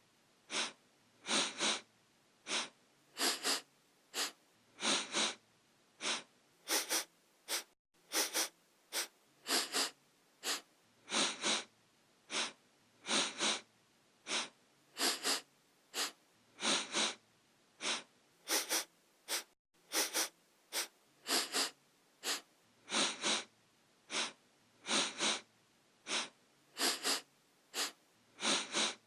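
A person sniffing through the nose: short, quick sniffs, mostly in pairs, repeating over and over at an even pace.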